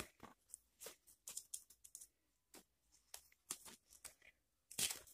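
Faint handling noise of a black camera-accessory strap being picked up and turned over in the hands: scattered short rustles and clicks, with a louder one near the end.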